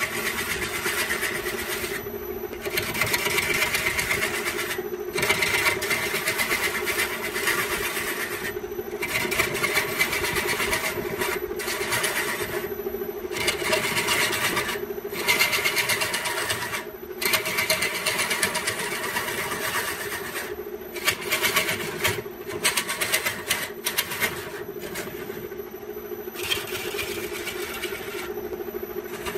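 Wood lathe running with a steady motor hum while a hand-held turning tool cuts into a spinning bamboo workpiece, giving a rough shaving hiss. The cutting noise breaks off briefly every two to four seconds as the tool lifts away, leaving the motor hum.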